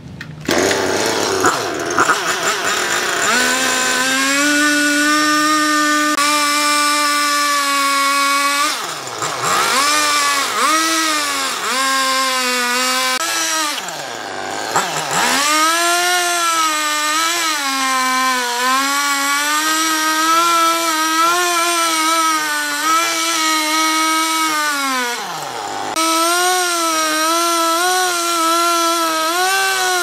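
Husqvarna two-stroke chainsaw running at high revs while cutting lengthwise through a wooden slab. The engine pitch dips and picks up again several times as the throttle is eased and reopened, and it wavers under the load of the cut.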